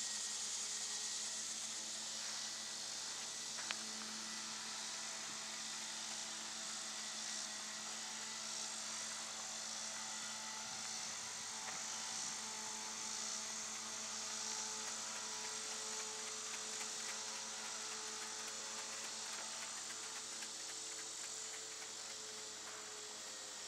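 A steady motor hum with a high, continuous insect buzz over it.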